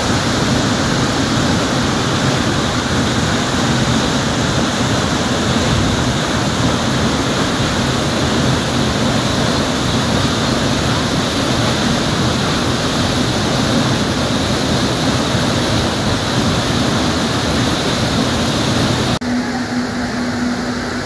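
Loud, steady rush of a waterfall pouring into its plunge pool, heard close up. Near the end it cuts abruptly to the quieter rush of a shallow stream running over rocks.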